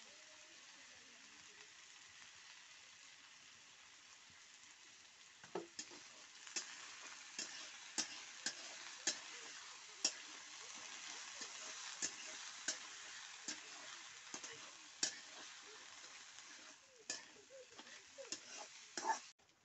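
Potato sticks and egg frying in a wok, with a steady sizzle that grows stronger about six seconds in. A spatula stirring the food knocks and scrapes against the pan in sharp, irregular clicks, the loudest near the end.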